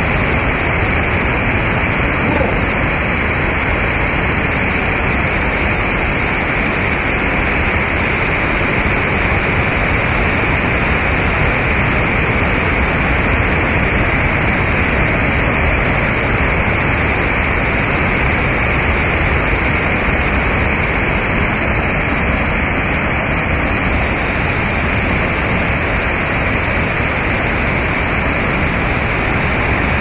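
Steady, unbroken rush of fast-flowing water.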